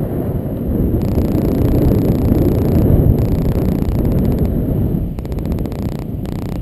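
Wind buffeting the microphone of a pole-held camera during a tandem paraglider flight: a loud, steady low rumble, with a fast flutter near the end.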